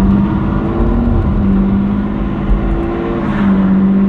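Ferrari FF's V12 engine heard from inside the cabin while driving, a steady engine drone over road noise. The engine note shifts about a second in and rises again around three seconds in.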